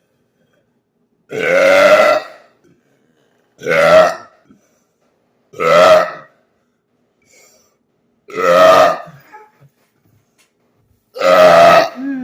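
A man forcing out five loud burps, one every two to three seconds, each lasting under a second with silence between.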